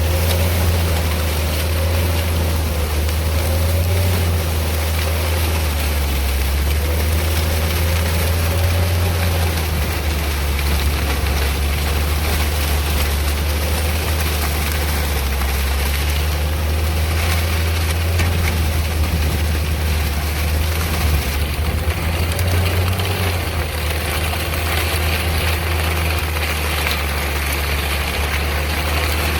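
Homemade rotary tiller's engine running steadily with a loud, low drone.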